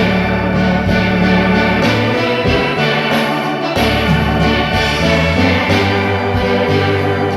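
Organ-voiced keyboard music in the South African church 'tent' style: held chords over a bass line that changes every second or so.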